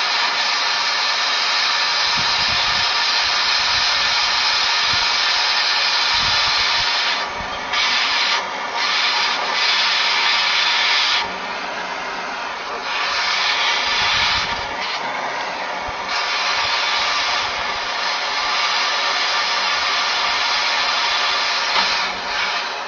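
Hand-held gas torch flame hissing steadily as it heats a copper pipe joint red hot for silver-solder brazing. The hiss dips in level several times along the way.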